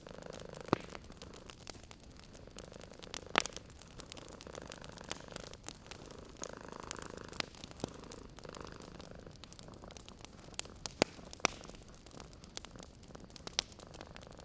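A cat purring in slow swells, with frequent sharp crackles and pops from a wood fire scattered over it.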